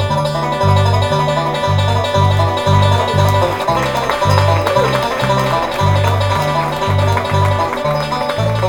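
Resonator banjo picked fast in bluegrass style, with a bass playing a steady line of low notes underneath.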